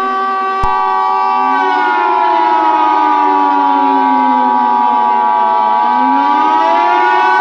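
Several sirens wailing, rising and falling in pitch, layered over a steady alert tone that starts with a click just under a second in.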